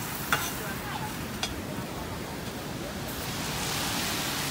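Steady street hiss with two sharp clicks in the first second and a half, then, about three seconds in, the swelling hiss of a vehicle's tyres on wet road as it drives past.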